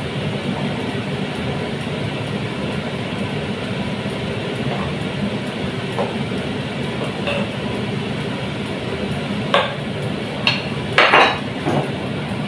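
A wooden spoon stirring soup in a metal pot, with a few sharp knocks and clinks of the spoon and bowl against the cookware, the loudest cluster a couple of seconds before the end. A steady rushing noise sits underneath throughout.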